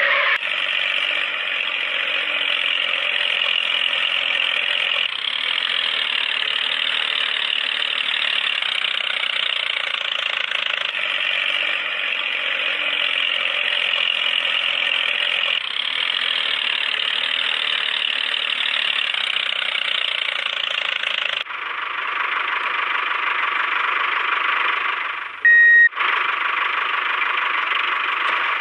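Small geared electric motor of a DIY toy tractor running, a steady high whine that shifts abruptly a few times. A short loud beep sounds near the end.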